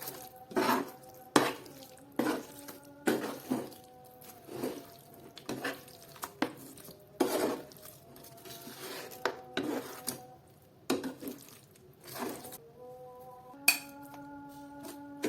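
A metal cooking utensil knocking and scraping against a cooking pan, a stroke about every second, as the food is stirred and tossed; some strokes leave a short ringing tone.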